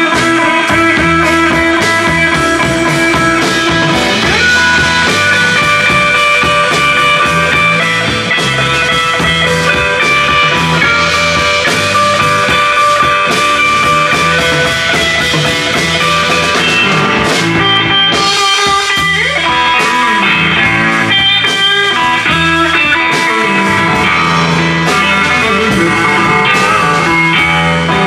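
Live blues trio playing an instrumental stretch between sung lines, with guitar to the fore over double bass and drums.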